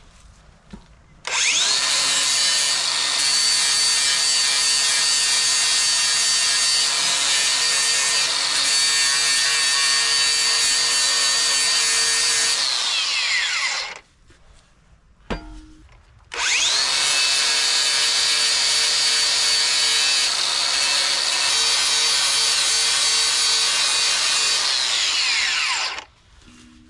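Angle grinder grinding down weld seams on steel: it spins up with a rising whine, runs steadily for about twelve seconds and winds down, then is started again a couple of seconds later for about ten more seconds and winds down near the end.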